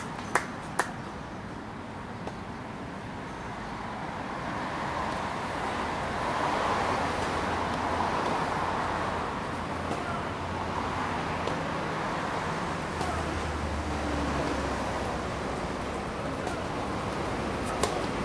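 Steady hum of road traffic. In the first second a tennis ball gives three sharp knocks, and just before the end a racket strikes the ball on a serve with one sharp crack.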